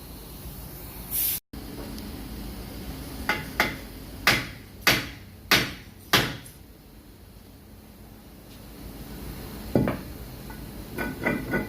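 Hammer striking a Volkswagen Passat's front brake rotor to knock it loose from the hub: six sharp blows about half a second apart, then one more knock and a few lighter metallic clinks near the end.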